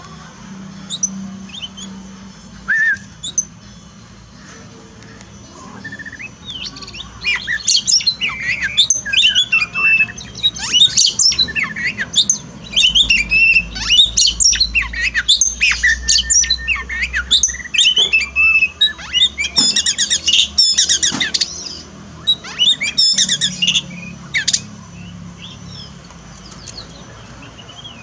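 Songbird singing a rapid, varied song of chirps, trills and whistles. It is sparse for the first several seconds and turns dense from about seven seconds in.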